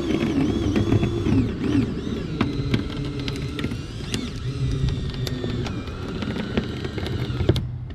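Cordless drill driving a wire-cutting windshield removal tool, pulling the cutting wire through the old urethane. The pitch of the whine wavers up and down under load, with scattered sharp clicks, and the drill stops near the end.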